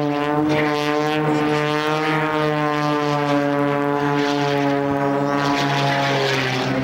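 Extra aerobatic plane's piston engine and propeller in flight overhead, a steady buzzing drone whose pitch sinks slightly over the second half.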